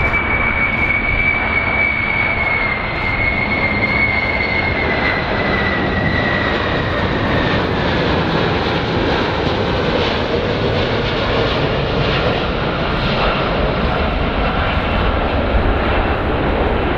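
Jet engines of a US Air Force Boeing 747 (VC-25) airliner on approach: a steady rush of jet noise, with a high turbofan whine that slides slowly down in pitch over the first several seconds and then fades into the noise.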